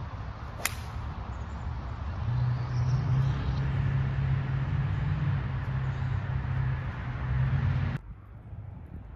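A golf club strikes a ball off the fairway turf with one sharp crack. A steady low rumble follows, grows louder a couple of seconds later, and cuts off abruptly near the end.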